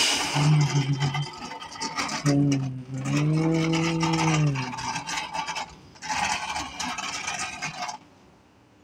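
Plastic toy dump truck pushed by hand across a rough floor mat, its wheels and body rolling and scraping in two stretches. A low, voice-like hum rises and falls in the middle, and the sound drops away near the end.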